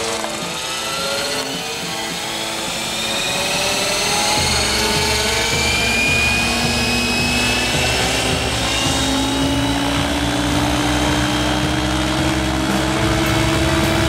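Gaui X7 RC helicopter spooling up on the ground: a motor-and-rotor whine rising slowly in pitch. Background music plays along, its beat coming in about four seconds in.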